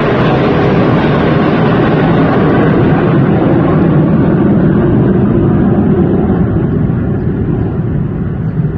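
Loud jet noise from F-16 fighters just after their low pass, the high hiss thinning out over the first few seconds while a low rumble stays on as they move away.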